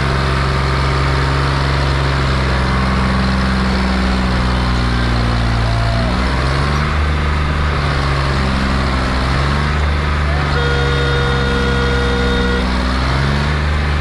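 John Deere tractor's diesel engine working hard under load, trying to drag a loaded trolley out of deep mud. Its engine speed drops and rises again several times. A steady tone sounds for about two seconds past the middle.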